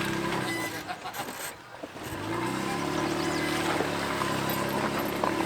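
Off-road truck engine running steadily. It drops away about a second in, then comes back about two seconds in with its pitch rising as it revs up, and settles to a steady run.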